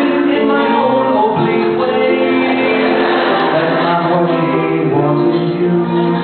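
Several voices singing long held notes in harmony over live piano accompaniment.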